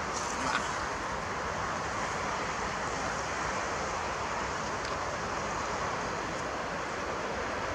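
Steady outdoor background noise: an even rushing hiss with no distinct knocks or calls.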